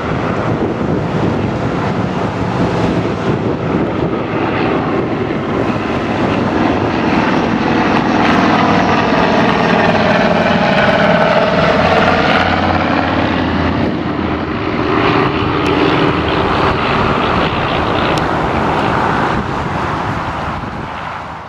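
Formation of vintage piston-engined propeller aircraft droning overhead; the sound swells to its loudest about halfway as they pass over, the engine notes sliding down in pitch, then fades as they fly away near the end.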